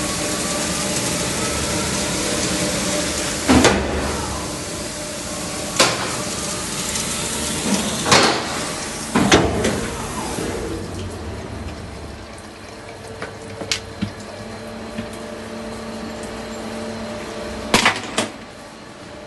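CNC lathe running, with a steady hiss like coolant spraying over the work under a faint motor whine, broken by several sharp clacks. The hiss eases off about halfway through.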